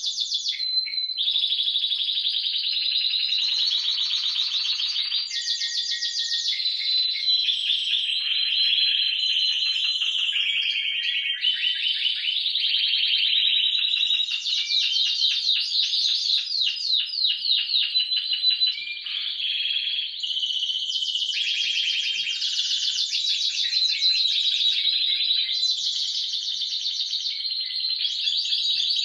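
Spanish Timbrado canaries (Timbrado Español Original) singing without pause: fast trills and rolls, one phrase running straight into the next and changing every second or two.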